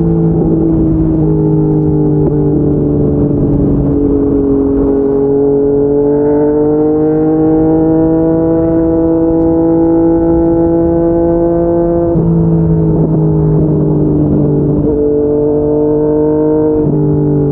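Yamaha MT-09 three-cylinder engine with an aftermarket slip-on exhaust, heard while riding. The note climbs slowly for several seconds, then drops suddenly about twelve seconds in, with smaller shifts in pitch elsewhere.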